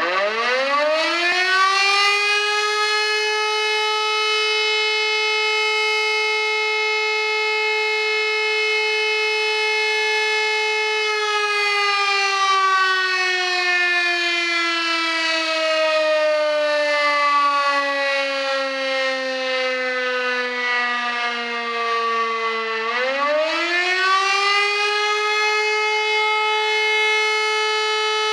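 Modified WW2-era Elektror L1/F2 combination motor siren, very loud, winding up to full pitch within about two seconds and holding a steady wail. About eleven seconds in its pitch begins to sink slowly for about eleven seconds as the rotor slows. It then winds quickly back up to full pitch and holds again near the end.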